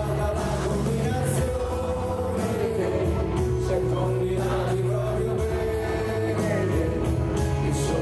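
Live rock band playing a slow rock song, with acoustic guitar, electric guitar, drums and keyboards over a steady bass line.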